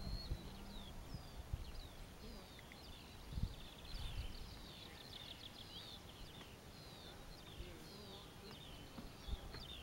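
Small birds chirping and singing, many short whistled notes repeating throughout, with wind rumbling and thumping on the microphone. At the very start, the steady hum of the RC model's electric motor slides down in pitch and fades out.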